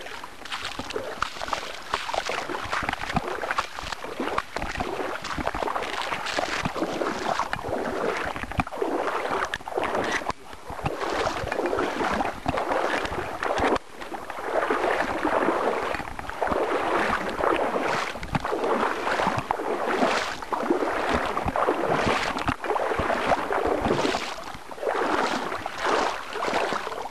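Lake water sloshing and splashing in repeated surges about once a second, as someone moves through it.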